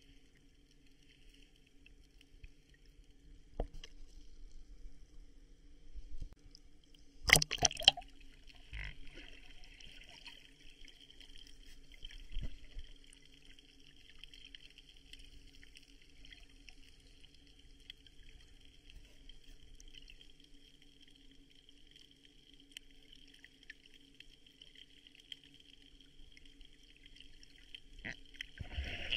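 Sea water sloshing and trickling close to the microphone, with a sharp loud burst about seven seconds in and a few smaller knocks.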